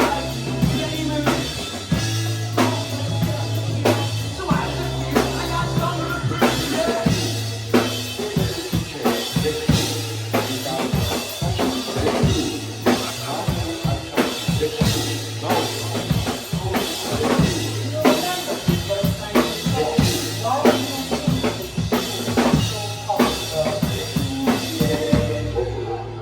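A live rock band playing an instrumental passage with no vocals: a drum kit beating steadily with kick and snare over a held bass line and other instruments. The music stops near the end.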